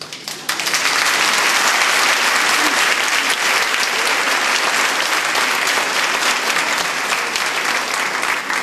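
Audience applauding, a dense patter of many hands clapping that starts abruptly and begins to die down near the end.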